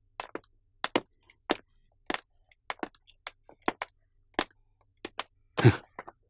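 Footsteps of hard-soled shoes clicking across a tiled floor, about two steps a second, with the steps of two people overlapping. A heavier thud near the end as someone drops onto a sofa.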